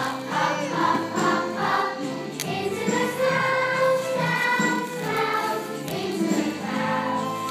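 A group of schoolchildren singing a song together as a choir, with musical accompaniment.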